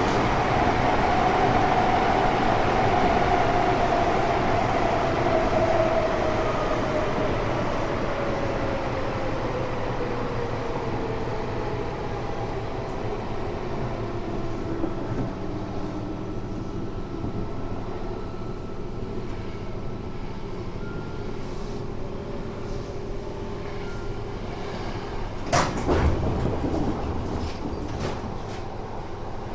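Tokyo Metro 6000 series armature-chopper electric train running and slowing, its motor whine falling steadily in pitch over the first half over a steady rolling rumble, then going on more quietly. A short loud burst of noise about 26 seconds in.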